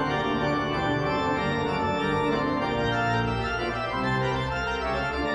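Background music of slow, held chords, the notes changing every second or so.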